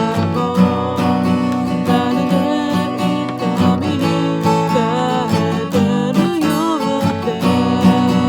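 Acoustic guitar strummed in a steady rhythm with a solo voice singing the melody over it, a sung-and-played song.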